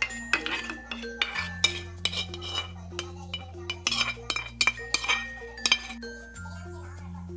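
Background music with a steady, slowly changing bass line. Over it, kitchen utensils clink sharply against cookware many times.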